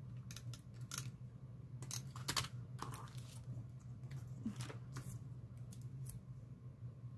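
Paper crafting handled on a tabletop: card stock and a silicone craft mat being picked up, shifted and set down, giving a string of irregular soft taps and short rustles. A steady low hum runs underneath.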